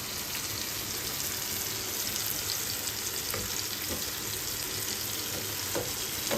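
Tomatoes frying in a pan, a steady sizzle with a few faint ticks.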